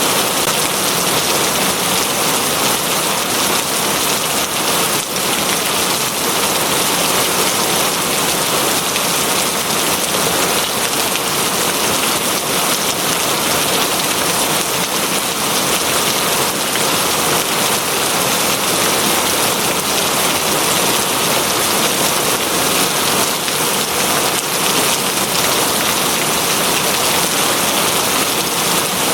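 Steady heavy rain falling on a surface, a constant dense hiss without breaks.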